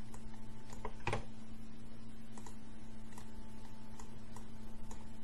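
Light clicks and taps as the dots are removed from written Arabic letters, with one louder knock about a second in, over a steady electrical hum.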